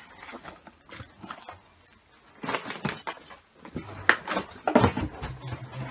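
Irregular knocks, rustles and light clatter of household clutter being stepped over and brushed against while moving through a crowded room; the loudest knocks come near the end.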